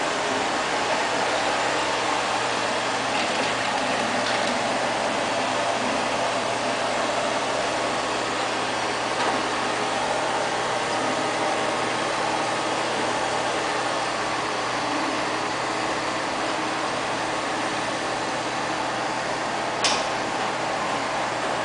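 LL-306 (X500) robot vacuum cleaner running across a tile floor: a steady whir of its suction motor and brushes, with one short sharp click near the end.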